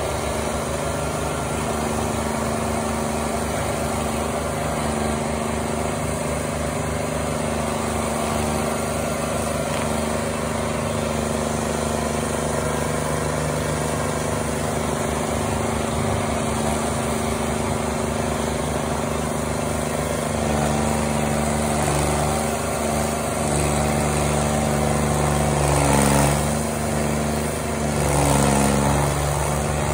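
Intimidator stump grinder's engine running steadily while its cutter wheel grinds a tree stump. Past the middle it gets louder, and near the end the engine pitch dips twice as the wheel bites into the wood under load.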